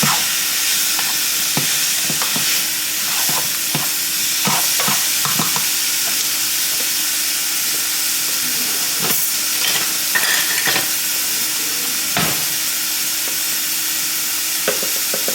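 Mushrooms sizzling as they fry in a pan, stirred with a utensil that knocks and scrapes against the pan at irregular moments.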